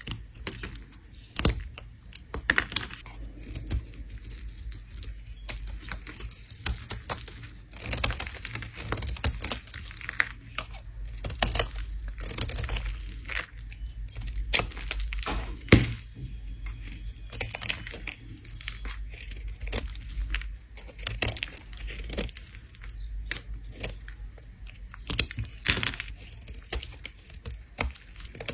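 Bar of soap being scraped with a blade: crisp, crumbly scraping strokes and sharp little clicks in an irregular run, some strokes longer and fuller than others.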